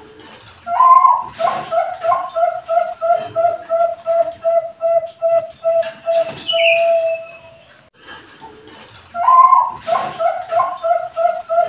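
Zebra dove (Bangkok-bred perkutut) cooing: each song opens with a higher note, runs into a quick even string of coos at about three a second, and ends on a long drawn-out note. One full song, then a second begins near the end.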